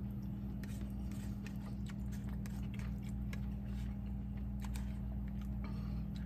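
A man chewing a mouthful of food, with small clicks and scrapes of a fork against a paper plate, over a steady low hum.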